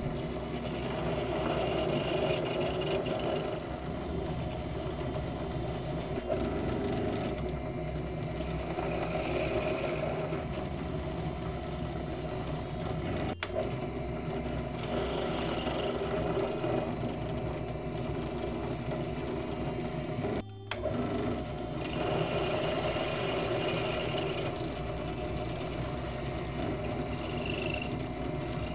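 WEN 4208 benchtop drill press running steadily as the bit is fed into the steel base of a lower ball joint, widening a pilot hole.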